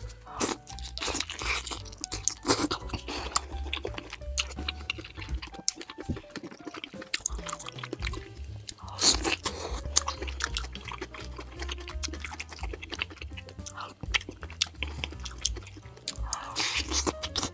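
Close-miked eating: biting into and chewing a stewed chicken drumstick, with many short sharp clicks and a few louder bites, over background music with a steady low bass.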